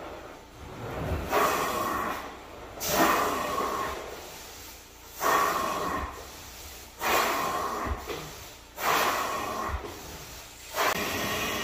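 Hand extraction tool of a rug-cleaning extractor rinsing a stain on a wool rug: six hissing strokes, each starting sharply and fading over about a second, about every two seconds.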